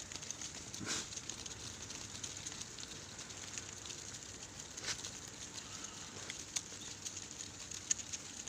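Background noise of a sheep farm: a steady hiss with scattered light clicks and taps, and no bleating.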